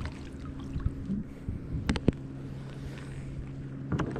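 Boat motor running at a steady idle, a low even hum, with a few sharp knocks about two seconds in and one near the end.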